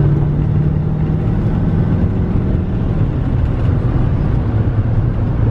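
Cab interior sound of a GMC Sierra 3500HD's 6.6 Duramax V8 turbo-diesel pulling the truck up through highway speed, mixed with steady road and tyre rumble. A steady low engine hum holds for about three seconds, then fades into the road noise.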